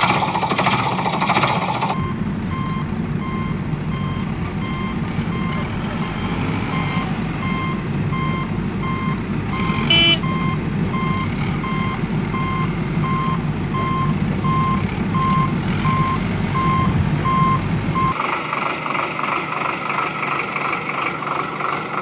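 A vehicle's reversing alarm beeps in a steady, evenly spaced series over a low engine rumble, with one sharp click about halfway through. Near the end the beeping and rumble stop and a different rhythmic mechanical sound takes over.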